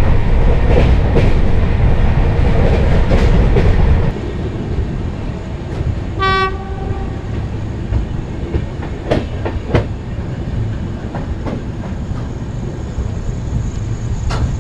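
Express passenger train running at about 115 km/h, a loud steady rumble of the wheels and coach. About four seconds in it gives way to a quieter, slower run into a station, with one short train horn blast about six seconds in and a few sharp clanks of the wheels over the rails.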